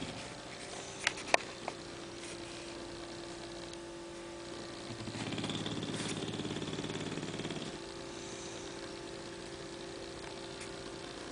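English bulldog snoring in its sleep: one long, rough snoring breath about halfway through, over a steady hum. Two sharp clicks sound about a second in.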